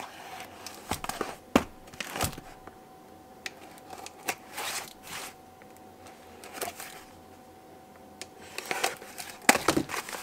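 Folding knife slitting packing tape on a small cardboard box, with scraping and rustling of the cardboard and scattered sharp clicks, the loudest cluster near the end as the box flaps are pulled open.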